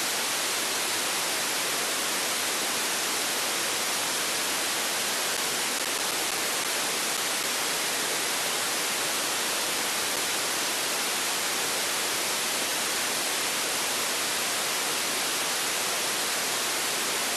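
Steady hiss of a software-defined radio's FM demodulator on the 10-metre band with no carrier present: the receiver is unsquelched and putting out pure noise once the repeater signal has dropped.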